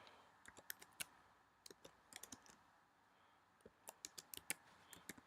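Faint typing on a computer keyboard: short, irregular runs of keystrokes with pauses between them.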